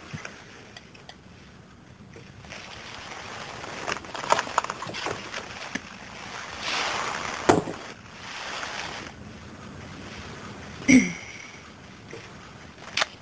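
Hissing spray from an aerosol can of whipped cream, in long swelling bursts, with a few sharp clicks in between. A short vocal sound comes near the end.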